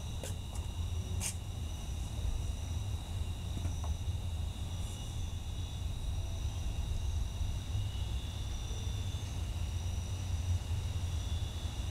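Crickets trilling steadily at several pitches over a low, steady rumble, with a single sharp click about a second in.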